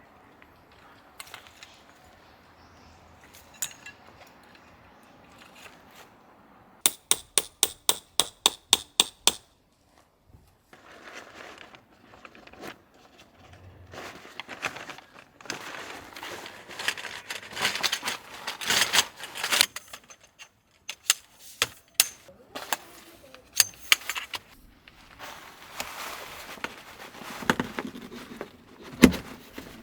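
A hammer driving a tent peg, about ten quick, ringing strikes, then the rustle and crinkle of tent fabric being handled, with scattered knocks.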